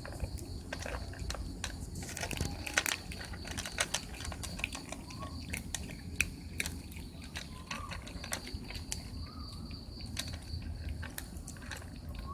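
Cats eating from a food bowl: irregular small clicks and smacks of chewing and licking.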